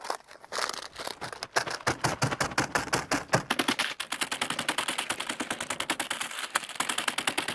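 A bag of Takis rolled tortilla chips being crinkled and crushed by hand, a dense, continuous crackle of foil packet and breaking chips.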